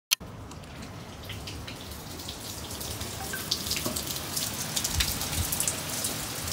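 Heavy storm rain pattering on a tiled terrace and roof tiles, with many separate drops splashing, growing steadily louder as a glass balcony door is opened. A click at the very start.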